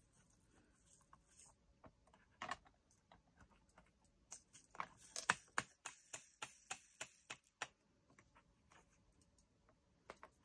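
Faint, irregular light clicks and taps of small clear plastic pots of resin diamond-painting drills being handled, coming close together from about four to eight seconds in.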